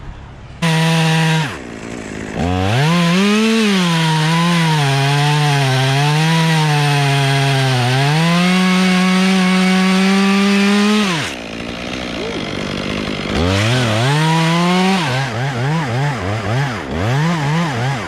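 Chainsaw running hard in a pin oak limb, its engine pitch sagging and recovering as it cuts. It starts with a quick rev, holds a long stretch at full throttle, drops back for a couple of seconds, then revs again and blips on and off near the end.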